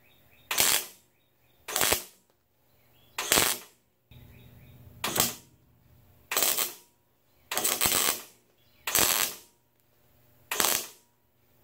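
Wire-feed (MIG) welder laying spot welds through a 1966 Ford Bronco's sheet-steel kick panel into the cowl. About eight short bursts of arc, each about half a second long, come a second or so apart.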